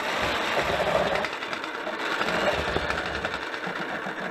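Harbor Freight Chicago Electric 11-amp electric breaker hammer (jackhammer) running, its motor and hammer mechanism going rapidly and steadily. This is a test run: the tool now runs on its repaired carbon-brush springs.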